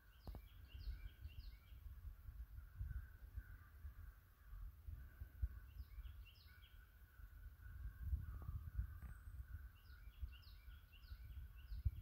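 A songbird sings a short phrase of quick high notes three times, about four seconds apart, over faint, near-continuous cawing of crows. A low rumble runs underneath throughout.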